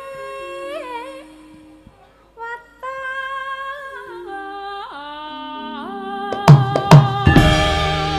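Javanese sinden (female gamelan singer) singing an ornamented, sliding vocal line over gamelan, with low instrument notes stepping downward beneath her. Near the end a few sharp drum strokes come in, and the full gamelan ensemble joins, louder and ringing.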